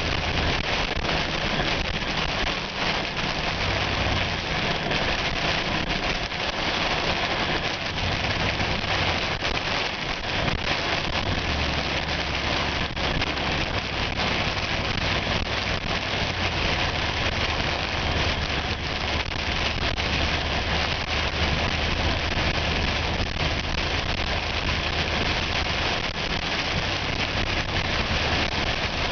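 Heavy wind-driven rain pelting a vehicle, with many fine rapid hits, over a steady low engine and road hum.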